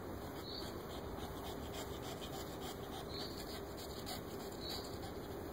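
Quiet garden ambience: a steady low hiss of background noise with a faint, short, high chirp recurring every second or two.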